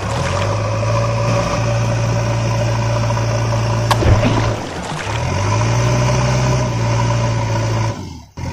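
Heavy truck engine running steadily, with a sharp click about four seconds in; the sound cuts out briefly near the end.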